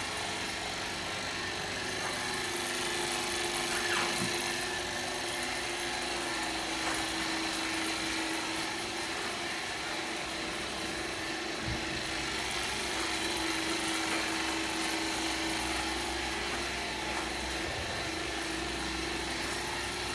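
Vacuum pump of a short path wiped film distillation unit running with a steady hum and a fainter high whine, over an even mechanical noise. There are a couple of faint knocks along the way.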